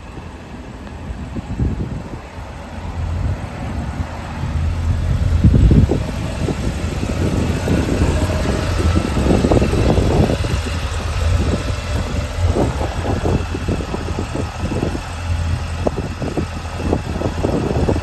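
Kawasaki Ridge XR side-by-side's 999 cc inline four-cylinder engine running, with an uneven low rumble; it gets louder about five seconds in and stays up.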